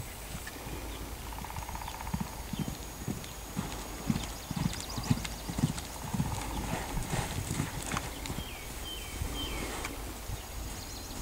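Dutch Harness Horse mare's hooves thudding on sand footing as she trots and canters loose. An uneven run of dull hoofbeats, heaviest from about two to eight seconds in.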